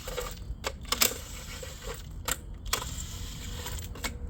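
A few sharp plastic clicks and rattles as the plastic lug nut caps are worked off a wheel.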